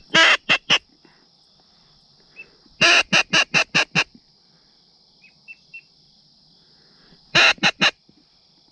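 Duck call blown in three quick runs of quacks, each opening with a longer note and followed by shorter ones: three notes, then about six, then three. A steady insect drone runs underneath.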